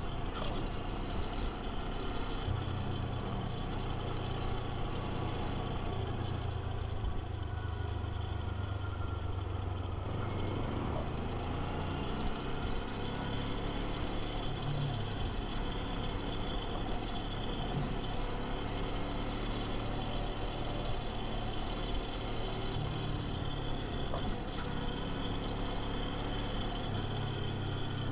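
Kawasaki Versys-X 250's parallel-twin engine running steadily on the move, its note shifting slightly now and then.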